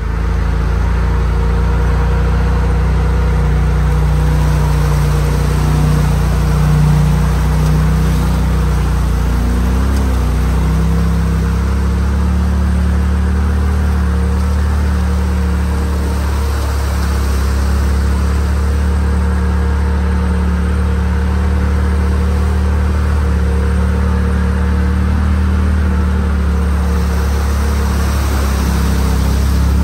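Off-road vehicle engine running at a steady speed, with a slight shift in pitch about ten seconds in.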